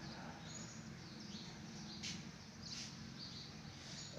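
Small birds chirping faintly, with short high chirps scattered throughout, over a low steady hum.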